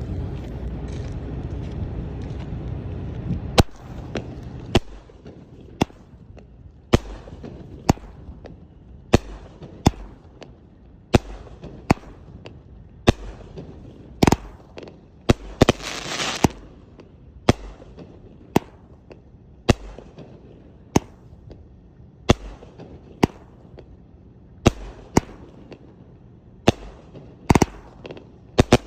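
Shogun 'Stars & Strobes' 21-shot fireworks cake firing, with sharp shots about once a second after a few seconds of steady rumbling noise. A hissing crackle follows a shot about two-thirds of the way through.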